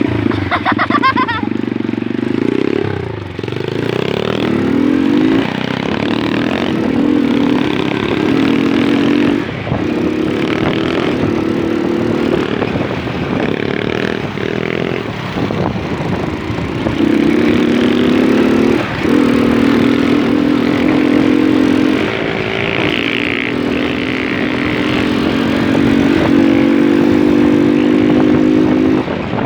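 Moped engine running while riding, its pitch rising and falling with the throttle, with short drops every several seconds.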